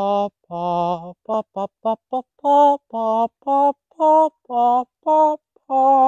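A man singing a wordless tune solo: a string of separate held notes, with a quick run of four short notes about a second and a half in.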